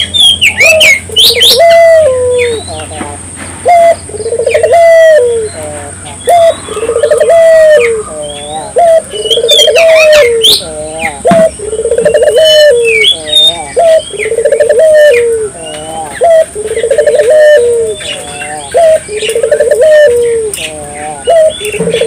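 Puter (Barbary dove) cooing over and over, a rolling low coo repeated about every one and a half to two seconds, with small birds chirping higher up and a steady high whine in the background.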